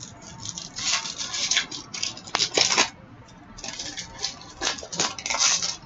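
Hockey trading cards being handled: several spells of rustling, scraping and sliding as cards rub against each other and the table.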